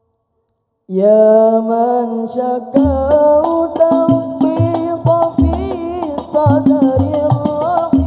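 After a short silence, a solo voice begins a sholawat melody with wavering ornaments. A few seconds in, the Hadrah Al-Banjari percussion comes in under the singing: frame drums with a low drum beat about twice a second and jingling.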